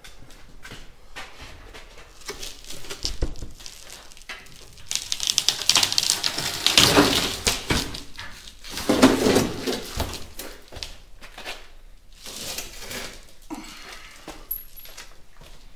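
Cracked windshield glass crackling and crunching as it is pried and pulled out of the cab's frame by hand, loudest for a few seconds in the middle.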